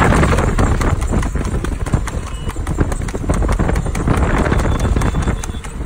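A horse's hooves clip-clopping fast on an asphalt road as it pulls a light two-wheeled racing cart. The hoofbeats come in a quick, steady run over a low rumble.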